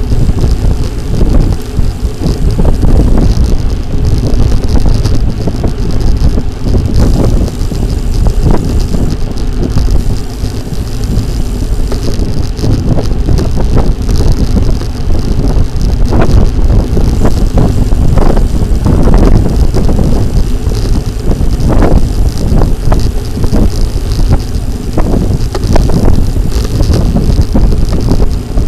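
Wind rushing and buffeting over the microphone of a camera riding along on a moving bicycle, a loud, uneven low rumble that rises and falls in gusts.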